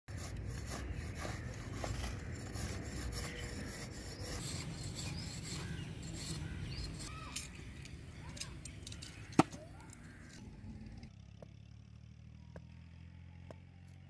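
Scraping and rubbing of a metal blade on stone and dry earth, with many small clicks and one sharp knock about nine seconds in; quieter from about eleven seconds on.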